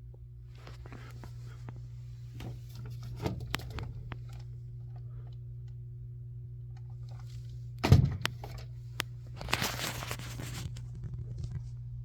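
Steady low electrical hum with scattered small clicks of handling. A single loud thump about eight seconds in, then a short rustle.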